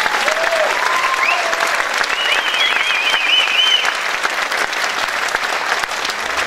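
Audience applauding and cheering at the end of a dance number, with high whoops rising above the clapping about two to four seconds in.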